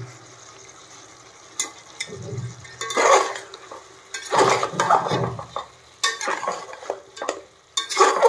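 Flat metal spatula stirring chicken pieces and tomato in a metal pot, scraping and clattering against the sides in irregular strokes, over a faint steady sizzle of frying. The stirring starts about a second and a half in.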